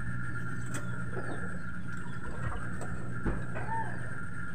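A chicken clucking a few times, faint and short, over a steady background hum.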